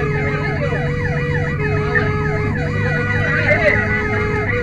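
Several fire engine sirens sounding at once, their fast rising-and-falling yelps (about three a second) overlapping, with a steady lower tone underneath and the low rumble of the trucks' engines.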